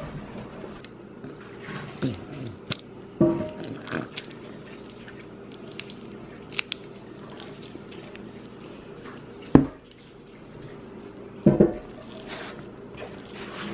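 Barbecue sauce squeezed from an upturned plastic bottle onto ground elk meat in a bowl: scattered squelches and drips with sharp clicks and knocks, over a faint steady hum. Near the end a hand begins squishing the sauce into the meat.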